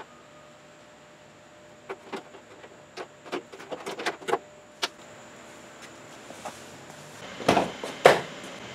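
Small plastic clicks and taps as a Nissan 240SX's amber side marker lamp and its bulb socket are handled and pressed into the fender opening, followed by two louder knocks near the end.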